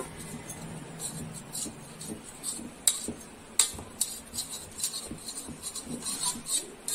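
A utensil scraping around the inside of a round metal cake tin to loosen a baked cake from the sides, with light scrapes and two sharp clicks against the tin around three seconds in.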